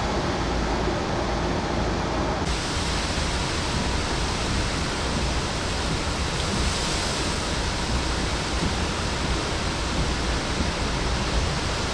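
Steady rushing noise of storm rain and wind, with no distinct events; it turns brighter and hissier about two and a half seconds in.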